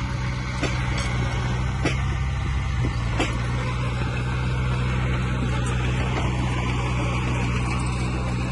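Heavy diesel engine of earth-moving machinery running steadily under a low hum, with three sharp clanks in the first few seconds.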